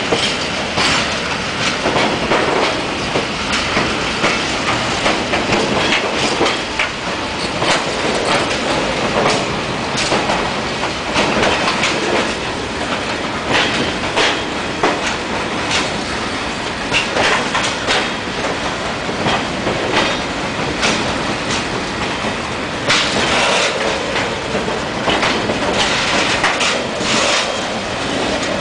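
Freight train of tank wagons rolling past close by: a steady rumble of steel wheels on rails with many irregular clacks from the wheelsets, some coming in quick clusters near the end.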